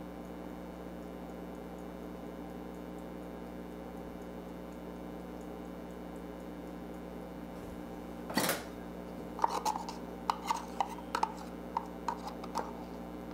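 Steady low hum while the molasses pours without a sound. About eight seconds in there is one short scrape, then a run of light clicks and scrapes as a spatula works the last sticky molasses out of a measuring cup over a stainless steel mixing bowl.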